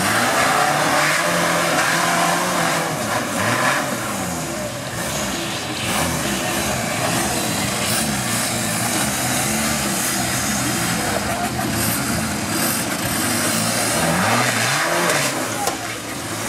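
Off-road trial 4x4 buggy's engine revving up and down again and again under load as it climbs a steep rocky slope.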